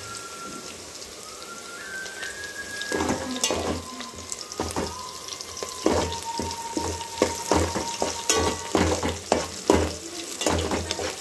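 Sliced onions and green chillies sizzling in an aluminium pot, stirred with a steel spoon. From about three seconds in, the spoon scrapes and knocks against the pot in a steady rhythm, about twice a second.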